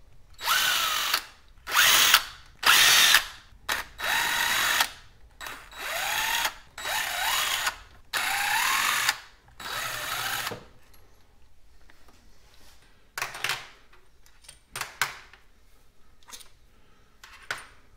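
A handheld power driver spinning out engine case bolts in about nine short runs, its motor whine rising in pitch as each run starts. It is followed by a few light metallic clicks.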